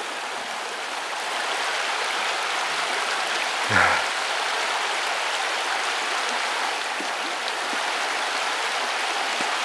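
Steady rushing of water over a shallow river riffle, an even hiss. A brief louder sound comes about four seconds in.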